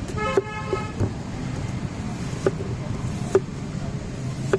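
Knife chopping watermelon on a cutting board: about five sharp knocks at irregular intervals, over steady street traffic noise.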